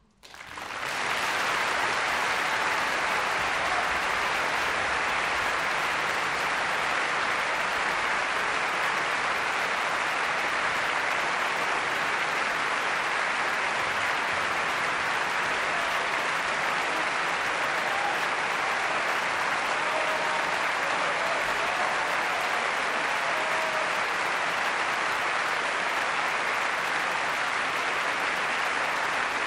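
Audience applause in a concert hall, breaking out from near silence at the very start, swelling within a second and then holding steady.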